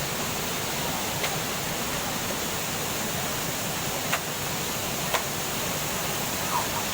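Waterfall: a steady, even rush of falling water, with a few faint ticks on top.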